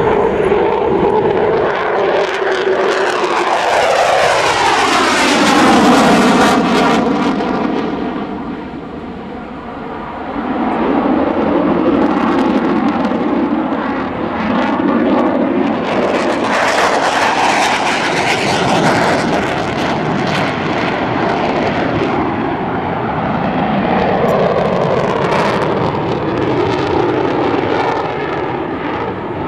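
USAF F-15 Eagle twin-engine fighter jet running on afterburner as it passes, the jet noise falling in pitch a few seconds in. The noise dips around nine seconds, then swells loud again as the jet comes around overhead.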